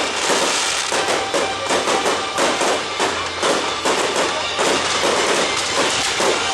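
Fireworks going off in rapid volleys, many sharp bangs and crackles in quick succession, mixed with music from the show's soundtrack.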